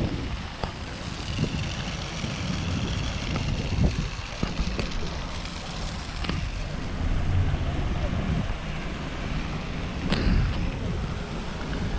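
Steady low outdoor rumble, with a handful of short knocks and clicks; the loudest knock comes about ten seconds in.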